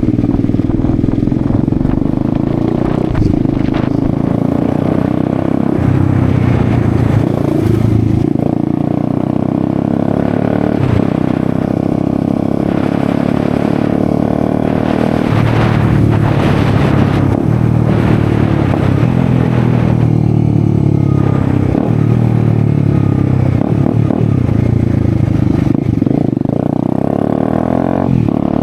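Bajaj Dominar 250's single-cylinder engine running loud through an exhaust with its end can removed, rising and falling with the throttle as it is ridden.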